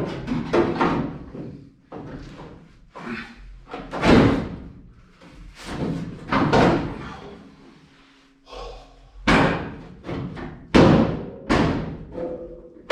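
Sheet-metal firewall panel banging and clunking irregularly against the car body as it is worked into place for a test fit. Each knock rings briefly.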